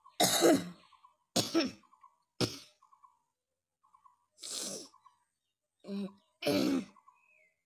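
A person coughing on purpose: a series of about six separate coughs spread over several seconds, with irregular short pauses between them.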